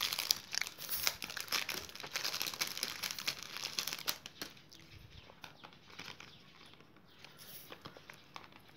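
Plastic wrapper crinkling and crackling as hands handle it, dense for the first four seconds or so, then sparser and quieter.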